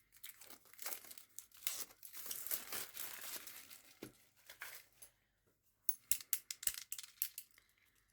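Plastic packaging crinkling and tearing as a product is unwrapped by hand, in uneven bursts with a denser stretch in the first half and another flurry of crackles near the end.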